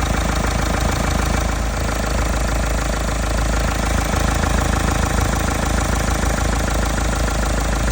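Mahindra Scorpio-N diesel engine idling with a continuous 'tak-tak-tak' ticking from one part of the engine, which the service centre put down to a faulty vacuum pump.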